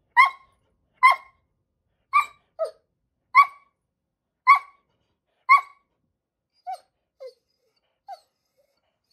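Pet dog demand-barking for food: six sharp barks about a second apart. These are followed near the end by a few quieter, shorter, lower yips.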